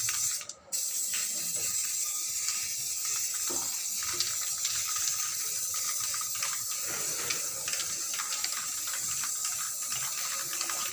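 Aerosol spray-paint can hissing steadily as red paint is sprayed onto a satellite dish, after a short pause just after the start.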